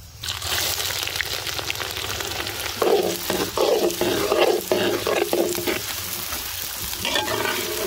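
Shallots frying in hot sesame oil in a large metal pan, with a constant crackling sizzle. A metal ladle stirs them, scraping against the pan in a run of repeated strokes from about three to six seconds in, and again near the end.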